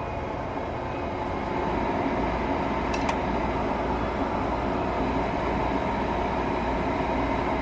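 Furnace draft inducer motor starting a heating cycle and running with a steady hum, building over the first second or two. A brief click sounds about three seconds in.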